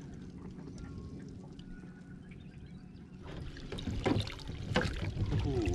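Water splashing and streaming off a mud-crab pot as it is hauled up out of the creek, getting louder from about three seconds in.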